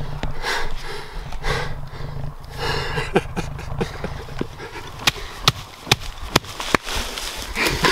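Heavy, excited breathing close to the microphone, a breath about once a second, over a low steady rumble; from about five seconds in come several sharp separate clicks or snaps.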